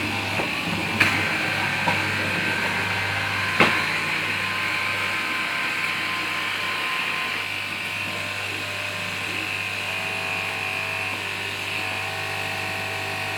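Electric fabric cutting machine's motor running steadily with a hum and high whine, with two sharp clicks about a second in and about three and a half seconds in.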